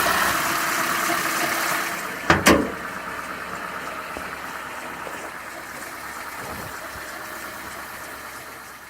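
Citroën C2 engine idling steadily, with one sharp thump about two and a half seconds in; the idle then slowly fades.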